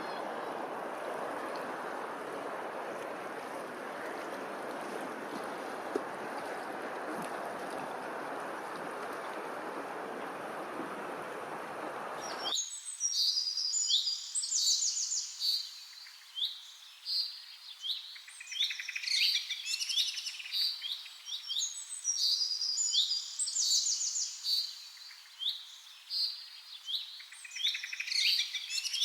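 A steady rushing noise stops abruptly about halfway through, replaced by a chorus of many birds chirping: rapid high chirps and short falling notes, overlapping and repeated.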